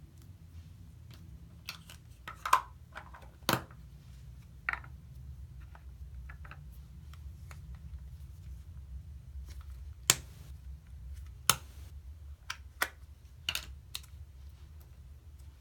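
Hands working Play-Doh and its small plastic tubs: irregular sharp clicks and taps, a few of them loud, over a faint steady low hum.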